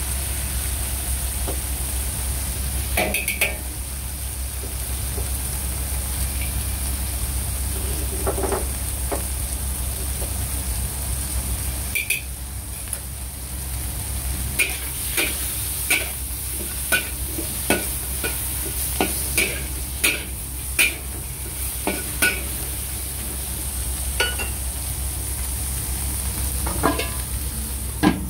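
Whole shell-on shrimp sizzling in a hot wok, over a steady low hum. About halfway through comes a run of sharp clicks, roughly one every half second to second, as a utensil strikes and stirs in the wok.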